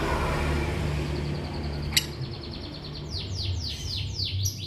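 Lovebird chirping: after a sharp click about two seconds in, a rapid string of high chirps begins, followed by a run of quick falling chirp notes. A low steady background rumble underlies the first half.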